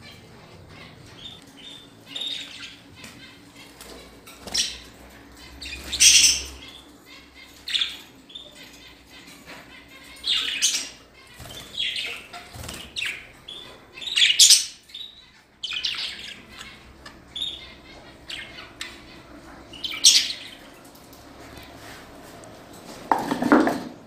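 Caged pet budgerigars chirping and squawking: short, sharp, high calls every second or two at irregular intervals, some of them loud, with a brief lower noise near the end.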